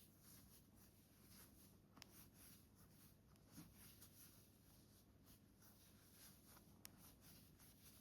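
Near silence with faint soft rustling and a couple of small clicks, from a crochet hook working yarn stitches.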